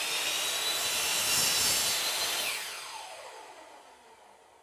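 Skil compound miter saw running and cutting through a wooden board at a 45-degree miter. About two and a half seconds in, the motor is switched off and its whine falls in pitch and fades as the blade spins down.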